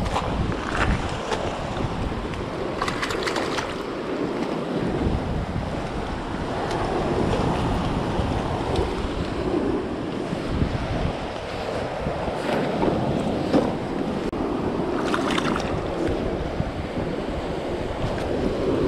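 Sea surf washing over and breaking on shore rocks, a steady rush, with wind buffeting the microphone. A few brief knocks are heard over it.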